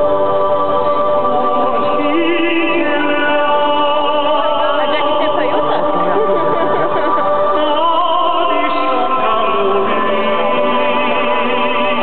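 Music with a choir singing long held notes over sustained chords, the voices wavering with vibrato.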